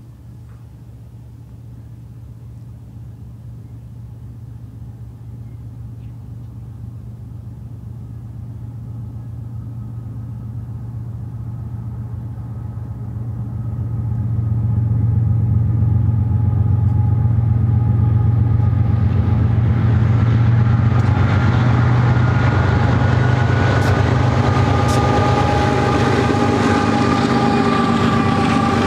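GE C44-9W diesel locomotives approach and pass, their engine drone growing steadily louder and peaking about halfway through. Empty freight cars then roll by, with rail clatter and high steady wheel squeal.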